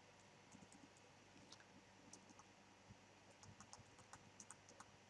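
Faint computer keyboard keystrokes, scattered at first and then a quicker run of presses in the second half as typed code is deleted.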